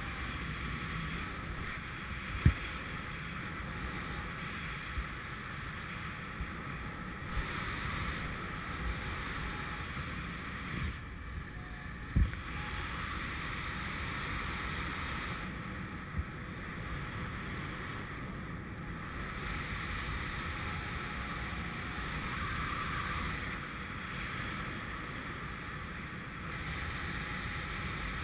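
Airflow of a paraglider in flight buffeting a GoPro's microphone: a steady wind rumble with a few brief low thumps, the sharpest about two and a half seconds in and another about twelve seconds in.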